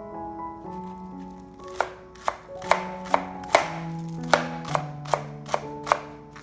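Knife chopping on a cutting board: about ten sharp, fairly even strikes beginning about two seconds in, over background music of held melodic notes.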